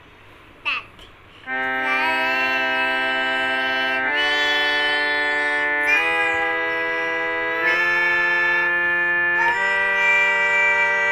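A small electronic keyboard plays held notes and chords that change about every two seconds, starting a second and a half in.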